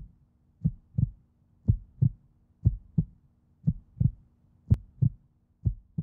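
Heartbeat sound effect: low double thumps, lub-dub, about one pair a second, over a faint steady hum.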